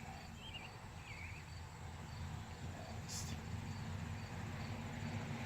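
Crickets chirping steadily in the background, a faint high pulse repeating about three times a second, over a low steady hum. A short hiss sounds about three seconds in.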